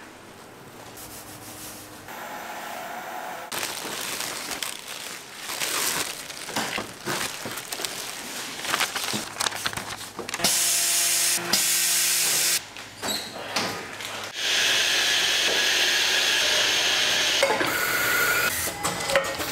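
Food-factory working sounds in quick succession: clattering, scraping and rubbing, with two stretches of loud hissing, changing abruptly every few seconds.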